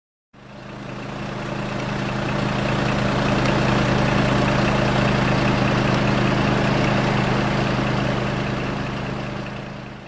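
Fire truck's diesel engine running steadily, a constant low drone that fades in at the start and out near the end.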